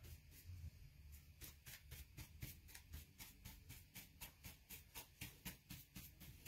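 Faint quick strokes of a paintbrush dry-brushing black paint across paper, a rhythmic scratchy brushing at about four or five strokes a second.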